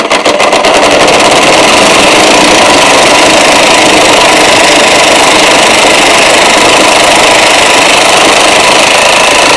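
DeWalt 20V cordless impact wrench hammering without let-up on a stubborn engine mounting bolt that does not come out.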